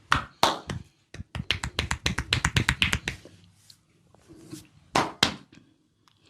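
A barber's hands working a head massage: a few sharp slaps, then a fast run of claps and cracks, about nine a second, lasting nearly two seconds, and two more loud ones near the end.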